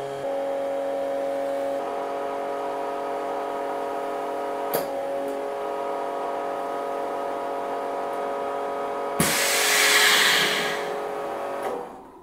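KOMET Vacuboy chamber vacuum sealer running a packing cycle: its vacuum pump hums steadily, with a click about halfway through. About nine seconds in, a valve clicks and air hisses back into the chamber for about two seconds as it vents, then the pump runs down and stops.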